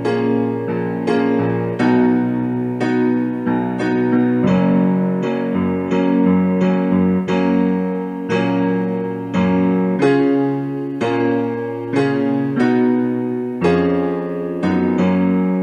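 Slow solo piano music: a chord or note struck about once a second and left to ring as it fades.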